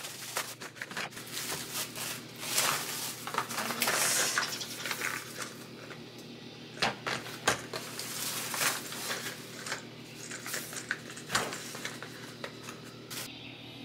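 Plastic bubble wrap crinkling as it is pulled off, then long cardboard coffee-capsule sleeves being handled and set down on a desk mat with several sharp taps.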